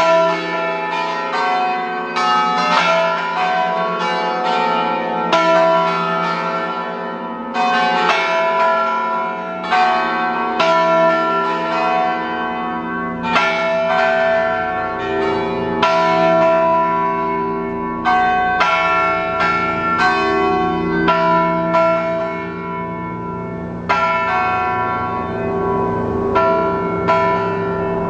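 Peal of five swinging Ambrosian-system church bells tuned E, F♯, G♯, A and B. Their strokes come in quick, overlapping succession, each stroke ringing on into the next.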